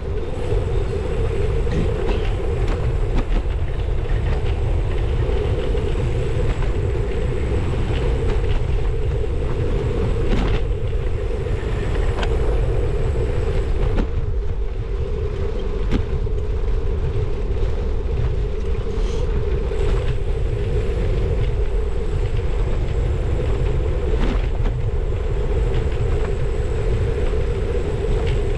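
Steady rumble of a bicycle in motion: wind on the handlebar-mounted camera's microphone and tyres rolling on tarmac, with a few light clicks and rattles from the bike.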